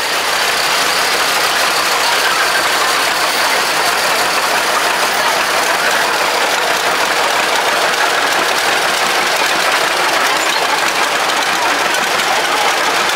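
Antique farm tractor engines running steadily as the tractors drive slowly past in a line: a red Farmall followed by green John Deere two-cylinder tractors.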